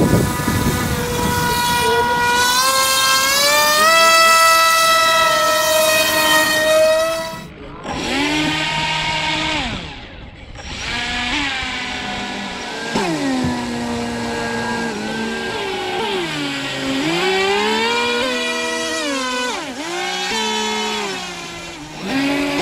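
RC camera boat's electric motor whining under throttle: its pitch climbs for several seconds, cuts out briefly twice, then rises and falls again and again as the throttle is worked. The motor sound has a pulsing that the owner cannot account for.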